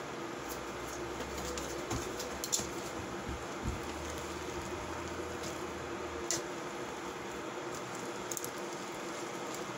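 A few light clicks and taps of a utensil against a pan as pancit noodles are mixed, spread out over a steady low hum.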